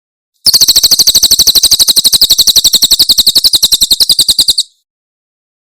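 Cililin bird giving its rapid-fire 'tembakan' call: a fast, even run of sharp, very high notes, about ten a second. It starts about half a second in and cuts off abruptly about four seconds later.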